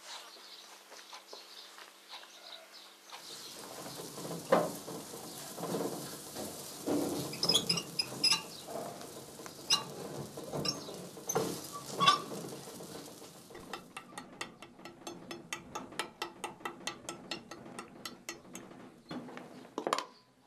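Metal cookware being handled: a tray, utensils and a small electric oven clink and knock irregularly as flatbreads are moved and loaded into the oven. About fourteen seconds in, a fast, even run of light clicks begins, about five a second, and lasts several seconds.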